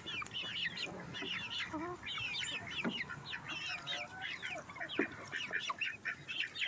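A flock of chickens clucking and cheeping, many short high-pitched calls overlapping.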